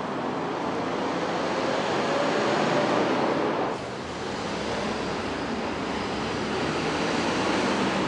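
Street ambience: a steady rush of traffic noise, with a faint rising hum in the first three seconds. The level drops abruptly about four seconds in.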